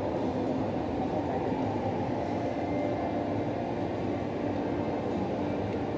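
Steady background hubbub of a waiting crowd: many voices blurred together into a low, even rumble.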